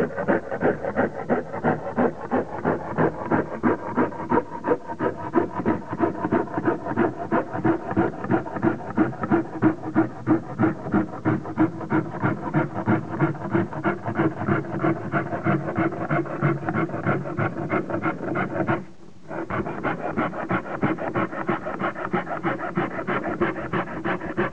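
A hacksaw blade mounted in a door hinge as a handle, sawing through a strip of white-faced MDF board with fast, even back-and-forth strokes. The sawing stops briefly about 19 seconds in, then carries on.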